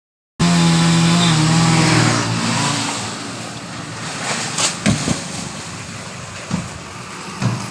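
Chainsaw engine running hard with a steady pitch, starting abruptly and fading after about two seconds into a rough noise broken by several sharp knocks.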